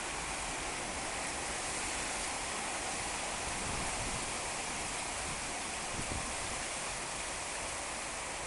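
Heavy rain coming down in sheets in a strong windstorm, a steady, even hiss.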